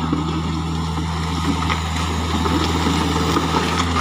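Diesel engine idling steadily: a low, even hum with a few faint clicks over it.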